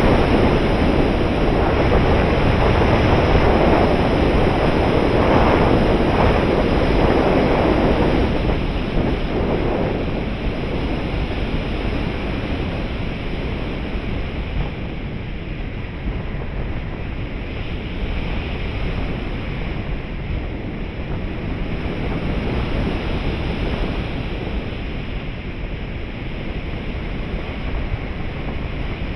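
Rushing wind noise on an onboard camera microphone of a 3.6 m RC glider in flight. It is louder for about the first eight seconds, then eases into a softer, steadier hiss.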